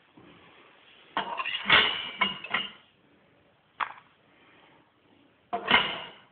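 Clattering and clinking of a stainless steel dog bowl filled with dry dog biscuits as it is handled: a cluster of clinks about a second in, a single sharp click midway, and another clatter near the end.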